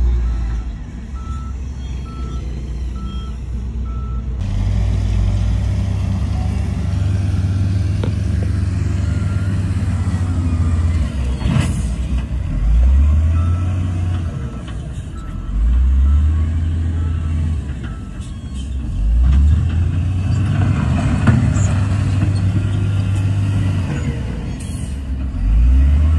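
Heavy diesel engine of a wheel loader running and revving up again and again as it works. A reversing alarm beeps steadily for the first four seconds.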